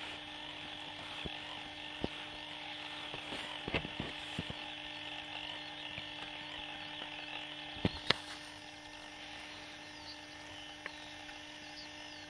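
Quiet outdoor ambience with a steady low hum under a faint high haze, broken by a few sharp clicks; the loudest are two clicks close together about eight seconds in.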